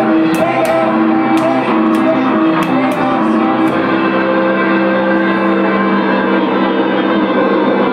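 Loud live band music, a punk/noise set: held electric guitar notes that change every second or so, with a few sharp hits in the first half.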